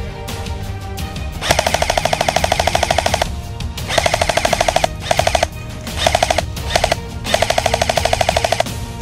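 Airsoft electric rifle firing on full auto in bursts: a long rapid rattle beginning about one and a half seconds in, then several shorter bursts and another long one near the end. Background music plays underneath.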